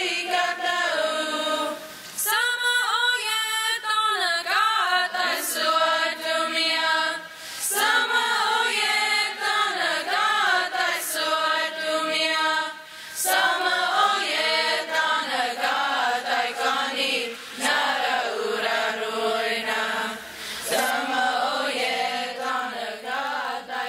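Youth choir singing a Comanche hymn a cappella, phrase after phrase with short breaks between them.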